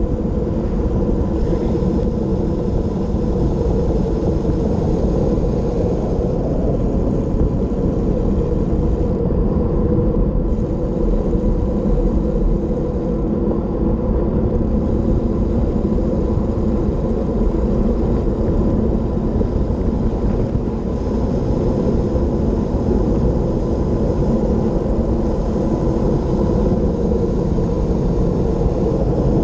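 Wind rushing over a bicycle-mounted camera on a road descent: a loud, steady rumble that never lets up.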